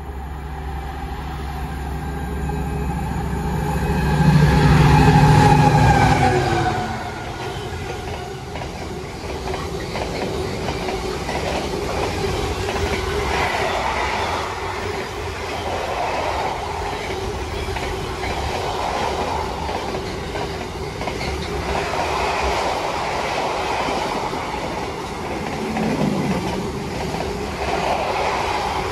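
A diesel train passing through the station. Its engine is loud in the first seven seconds and falls in pitch as it goes by, and a long train of cars follows, the wheels clattering over the rail joints in regular swells to the end.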